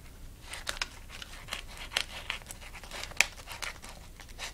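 Stiff white paper crinkling and tearing as it is bitten and chewed: a string of irregular sharp crackles, the loudest snap about three seconds in.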